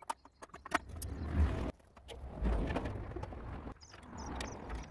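Several sharp metal clicks of a spanner working on the cement mixer's fittings in the first second, then footsteps crunching on loose gravel, with low thumps.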